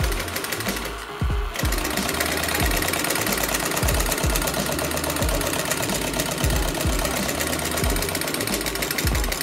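Homemade tin-can Stirling engine running, its wire crank and linkage clattering in a fast, even rhythm, over background music with a bass beat.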